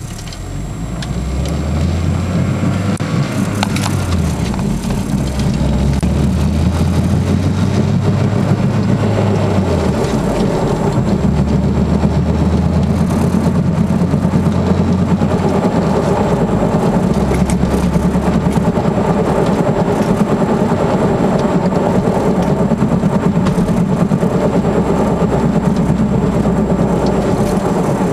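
1999 Honda Accord on the move: steady road rumble with a low drone whose pitch shifts down and up a few times. The drone is the noise of a worn passenger-side wheel bearing.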